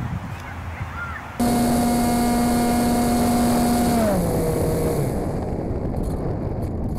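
Electric motor and propeller of an RC foam F-22 model plane. It starts abruptly as a loud, steady whine about a second and a half in. About four seconds in it is throttled back: the pitch glides down and the sound fades away.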